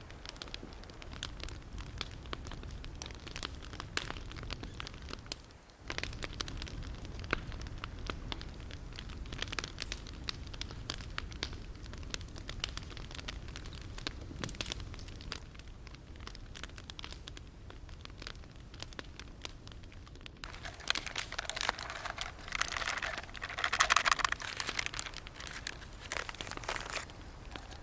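Wood fire crackling in a fire pit, with many sharp crackles and pops. A louder stretch of crinkling and rustling comes near the end.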